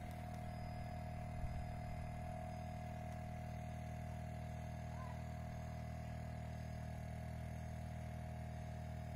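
Steady low hum with a thin steady whine above it: the Citroen C4 Grand Picasso's rear air suspension compressor running to pump the car up to its highest setting, on a car with a leaking rear air spring. A single light knock about a second and a half in.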